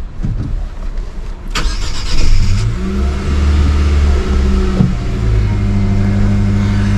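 Nissan Frontier pickup's four-cylinder petrol engine, heard from inside the cab, being cranked by the starter. It catches a couple of seconds in with a brief rev flare, then settles into a steady idle.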